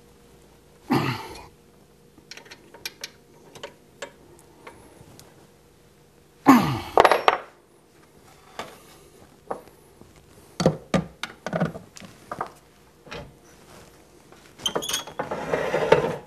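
Metal lathe parts and hand tools being handled on a wooden workbench: clinks and scattered knocks, with two louder scrapes about a second and six seconds in. Near the end comes a denser rubbing scrape as the lathe's tailstock is slid along the bed.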